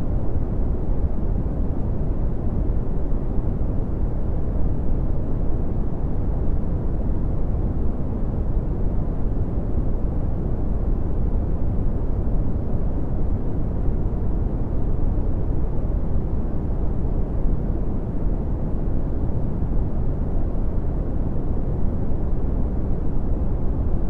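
Red (Brownian) noise: a steady, deep rumbling hiss with most of its energy in the bass, fading off toward the treble, unchanging throughout.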